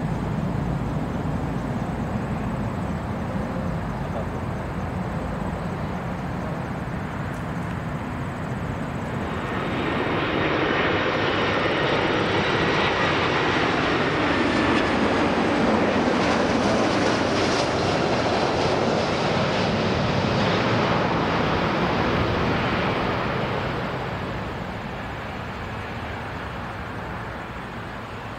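Jet airliner engines: a low steady rumble from a Boeing 777-300ER rolling out after touchdown, then, about ten seconds in, an Airbus A340-300's four jet engines grow loud as it passes close on final approach, with a faint falling whine, and fade again near the end.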